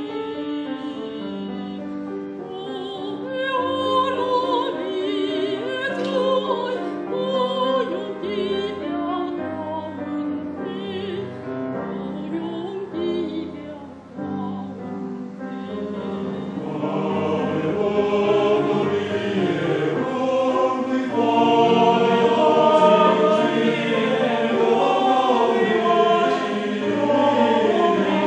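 Mixed church choir singing a Christian hymn in parts over low sustained accompaniment. About two thirds of the way through, the singing swells fuller and louder.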